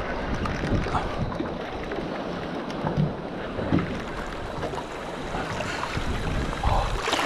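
Wind on the microphone and water moving around a small boat, with a few light knocks.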